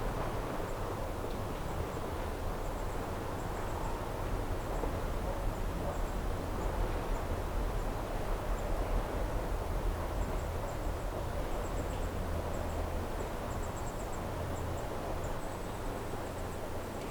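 Lochside ambience: a steady wash of breeze and lapping water over a low rumble, with faint high-pitched wildlife chirps coming and going, more of them in the second half.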